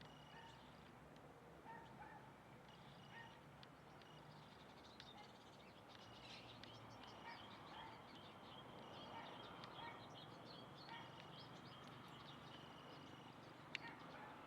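Faint birds chirping, with many short calls repeating throughout.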